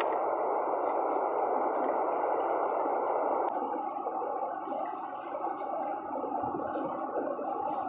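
A steady rushing noise, then from about three and a half seconds in a wavering, wet slurping: raw rock oysters being sucked straight off the rock by mouth.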